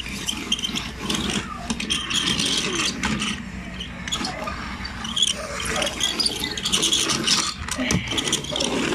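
A plastic toy fire truck being pushed and handled on a tabletop: a steady run of small clicks and rattles.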